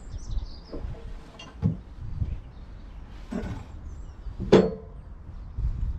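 Several hollow knocks and clunks of timber being handled on a homemade wooden log deck, the loudest about four and a half seconds in with a brief ring, over low wind rumble on the microphone.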